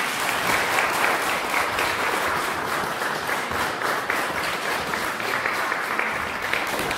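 Audience applauding, many hands clapping in a steady, dense patter.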